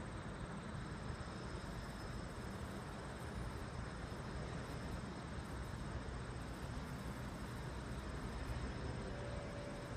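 Steady low rumble and hiss of a Seoul Metro Line 1 rheostatic-control electric train running away into the distance, heard faintly amid outdoor background noise, with a thin high tone from about a second in.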